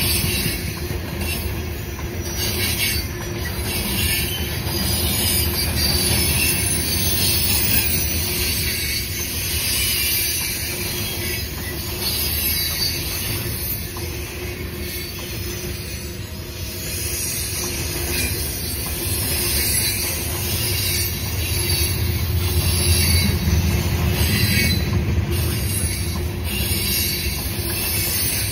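Freight train of CSX open-top hopper cars rolling past: a steady rumble of steel wheels on rail with high-pitched wheel squeal on the curve that swells and fades, a little louder near the end.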